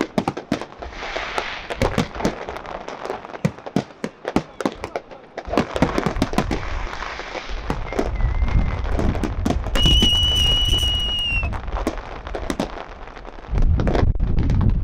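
Aerial fireworks display: a rapid string of shell bursts and sharp bangs that thickens about halfway through into a dense barrage of deep booms and crackle. A steady high whistle sounds for a second or so about two-thirds of the way in, and the barrage grows heavier again near the end.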